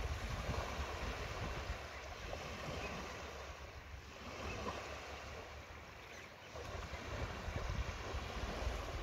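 Wind rumbling on the microphone over small waves lapping at the shoreline, with an even hiss. The wind eases for a while about six seconds in and then picks up again.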